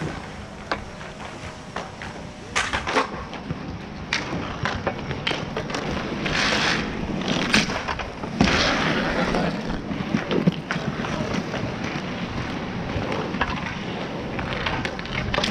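Inline skate wheels rolling and scraping on asphalt, with sharp clacks of hockey sticks striking each other and the ball, several about 3 seconds in and again around 7 to 8 seconds in.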